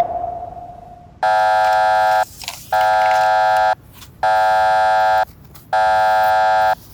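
A single sonar-like ping fades out, then a loud, harsh electronic buzzer sounds four times in one-second blasts, about one every one and a half seconds.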